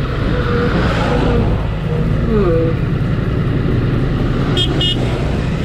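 Ducati Multistrada V4S's 1158cc V4 Granturismo engine running at low road speed over a dirt road. About four and a half seconds in, a horn gives two short toots close together.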